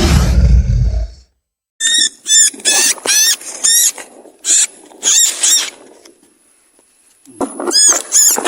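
Animal calls: a deep, loud roar fades out about a second in, then a rapid string of short high-pitched squeaky calls, each arching down in pitch, in two bursts with a lull between.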